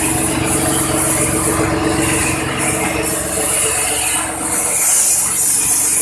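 Cassava slicing machine running under load on its small engine: a steady engine drone beneath a continuous rasping hiss as the cassava is cut into chips.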